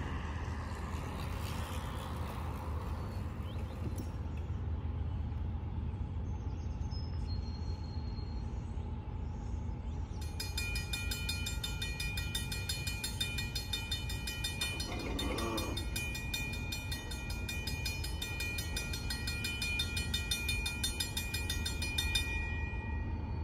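Railroad crossing's electronic warning bell starts about ten seconds in, a rapid repeating ring as the crossing signals activate for an approaching train, and stops shortly before the end as the gates come down. A steady low rumble runs underneath.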